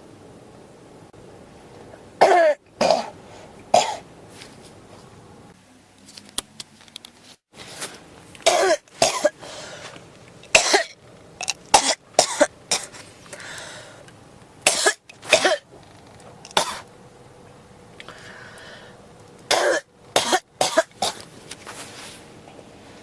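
A person coughing in short fits of two or three coughs, with pauses of a few seconds between the fits.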